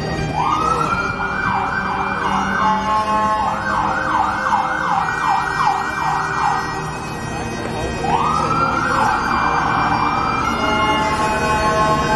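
An emergency vehicle's siren going by: a rising wail, then several seconds of fast yelping up-and-down sweeps, then another long wail about eight seconds in. It is the loudest sound, over a fiddle orchestra playing steadily.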